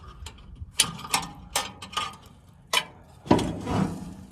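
Sharp metal clicks as a fastener on the hammer mill housing of a Farmhand 822 feed grinder-mixer is worked loose, about five in the first three seconds, then a longer rattling scrape about three and a half seconds in as the cover comes free.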